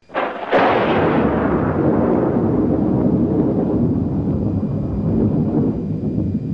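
A sudden thunder-like crash, with a second hit about half a second later, then a long rolling rumble that holds steady and begins to fade near the end.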